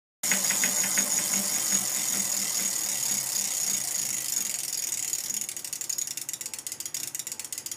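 Bicycle hub freewheel ratchet clicking as a spun wheel coasts. The clicks are rapid at first and slow down toward the end, as the wheel loses speed. A thin high whine sounds over the first few seconds.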